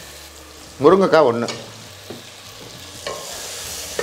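Onion, tomato and brinjal pieces sizzling as they sauté in hot oil in a pot, stirred with a wooden spatula that knocks against the pot a couple of times near the end. One spoken word is heard about a second in.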